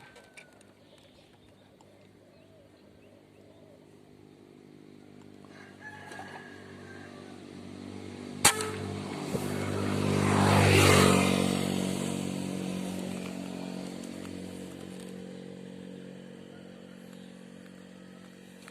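A small engine running, its hum swelling to a peak about eleven seconds in and then slowly fading. A single sharp crack about eight and a half seconds in.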